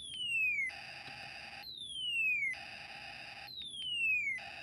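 Snap Circuits Space War IC sound effects from the kit's small speaker, set off by the motor acting as a generator. A falling electronic laser tone alternates with a burst of buzzy static, three times over, repeating about every two seconds.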